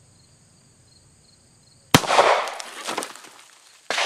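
A 9mm pistol shot from a Ruger SR9 about two seconds in: one sharp crack followed by a long decaying echo. A second sharp bang comes just before the end.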